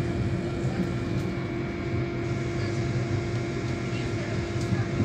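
Steady low rumble with a constant hum of a passenger train running slowly, heard from on board.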